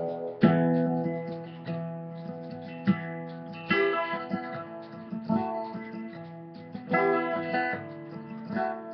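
Acoustic guitar strummed slowly, a chord struck about every second or so and left to ring before the next.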